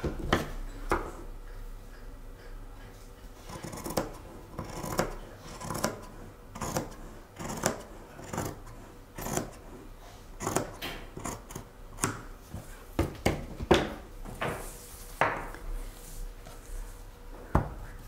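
Scissors cutting: short, sharp snips at uneven intervals, roughly one a second, with light rubbing and handling sounds between them.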